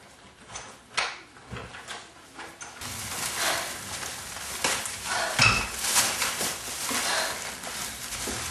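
Rustling and crinkling of a plastic bag being carried and handled, with scattered knocks. One sharp knock comes about a second in, and the rustling grows denser after about three seconds.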